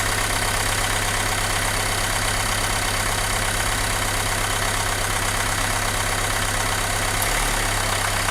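Renault Mégane II engine idling roughly, the shaking idle of an engine with a vibration and no power. Pulling cylinder four's connector leaves it unchanged, the sign of a cylinder that is not firing. The low rumble shifts about seven seconds in.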